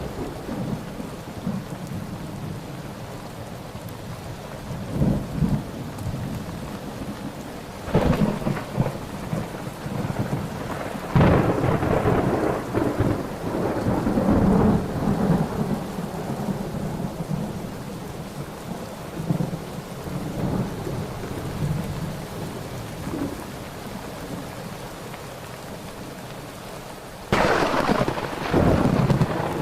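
Thunderstorm: steady rain under repeated rolls of thunder. Several rumbles come and go, the loudest rolling on for several seconds around the middle, and a sharp thunderclap breaks in near the end.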